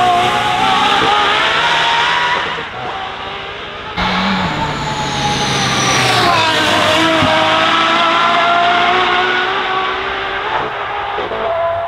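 Aston Martin Valkyrie's 6.5-litre Cosworth V12 at full throttle, its high-pitched note climbing with the revs and fading as the car pulls away. After a cut about four seconds in it is heard again, revving higher with a brief drop in pitch at a gear change near the middle.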